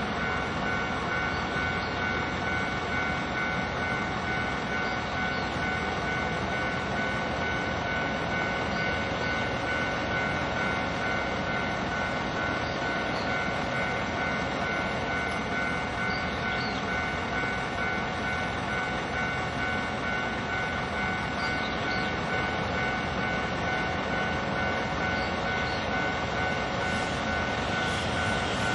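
Japanese level-crossing warning bell ringing steadily at full volume with the barriers down, signalling an approaching train, over a hum of road traffic. A train's rumble starts to creep in near the end.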